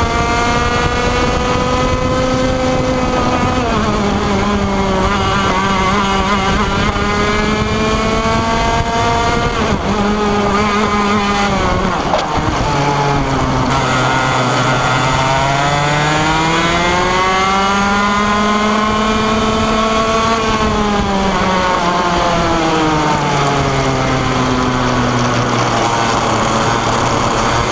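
125cc two-stroke racing kart engine at high revs, heard from on board, its pitch staying high on the straights and dropping as it slows for corners. The deepest drop comes about halfway through, then it winds back up, falls again and begins to climb near the end.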